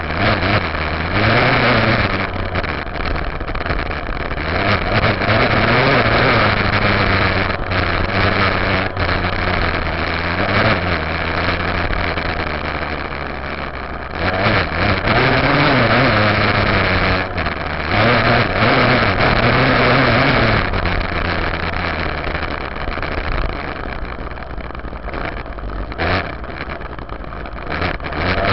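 Yamaha YZ dirt bike engine revving up and down over and over as the bike accelerates and eases off on a trail, with wind and road noise, heard from a camera on the rear fender.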